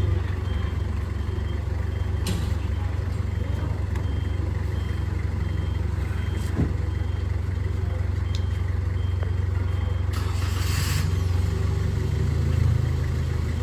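A vehicle engine running steadily with a low rumble, over a faint high beep repeating about one and a half times a second. A short hiss lasts about a second near the end.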